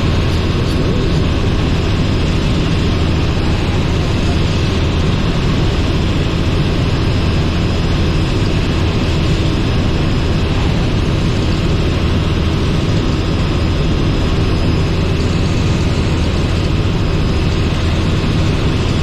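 Robinson R44 helicopter in flight, heard from inside the cabin: the six-cylinder piston engine and rotors make a steady, loud, low drone that stays even throughout.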